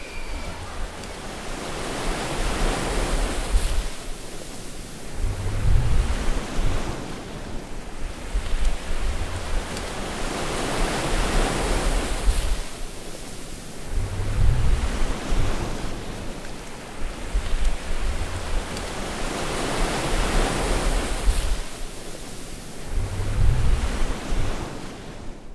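Ocean waves surging and breaking, the sound swelling and falling back in slow repeated surges. The three biggest breaks, about nine seconds apart, come with a low rumble, and the sound fades out at the very end.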